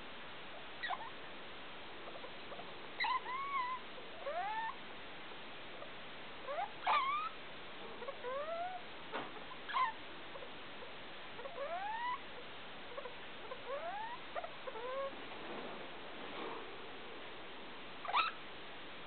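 A degu calling: short, squeaky chirps that mostly sweep upward in pitch, coming singly or in quick pairs at irregular gaps, about twenty in all, over a steady background hiss.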